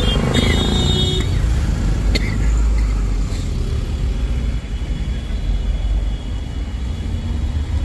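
Busy city road traffic: a steady low rumble of engines, with a vehicle horn sounding about half a second in for about a second.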